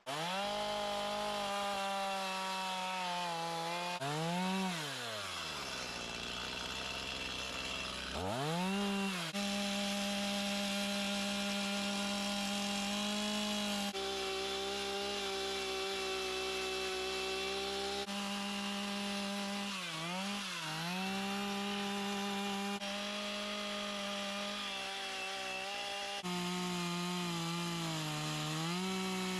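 Chainsaw running at high revs while carving wood. It drops to idle about four seconds in and revs back up about four seconds later, then dips briefly twice more.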